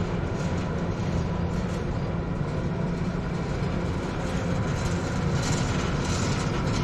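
Steady low rumble with a faint even hum, typical of a cabin on an aerial tramway riding along its cables.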